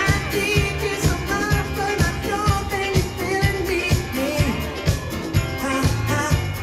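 A song with a singing voice over a steady drum beat of about two beats a second, played loud by the DJ over the hall's sound system.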